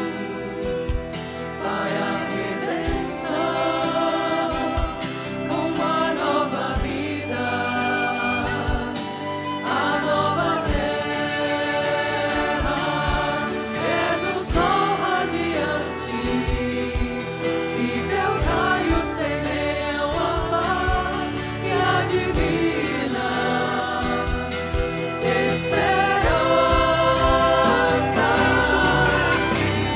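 A choir singing a Christian hymn with a live band of electric guitar, violin, flute, keyboard and drums, the singing steady throughout.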